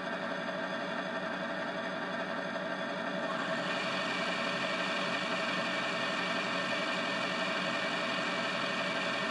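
ESU LokSound decoder playing a Class 57 diesel locomotive's idling engine through a small EM1 model speaker, steady and even. A higher whirring layer joins about three and a half seconds in.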